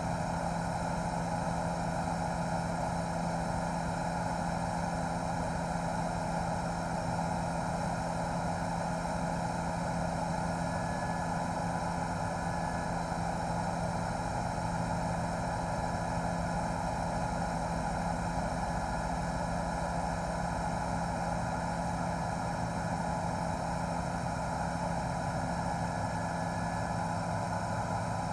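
Steady drone of a news helicopter's engine and rotors, heard from on board, with an even hum that does not change in level or pitch.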